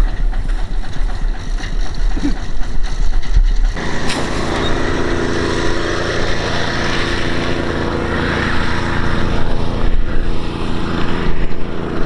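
Deep, uneven low rumbling, then about four seconds in a motor engine comes in and runs steadily to the end.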